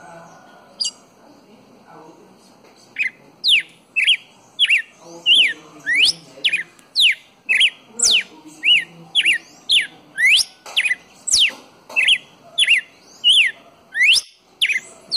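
Red-cowled cardinal singing. One chirp comes a little under a second in. From about three seconds in, a long run of loud, clear whistled notes follows, about two a second, alternating sharp downward-slurred notes with short arched ones.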